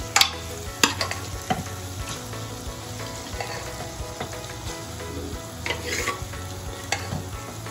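Pav bhaji masala of onion and tomato sizzling in a non-stick kadhai as mashed vegetables are added, with a few sharp knocks of utensils against the pan.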